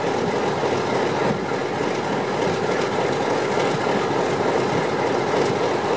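ALCO diesel-electric locomotive 4464's diesel engine running at a steady idle, a loud, even sound with no change in speed.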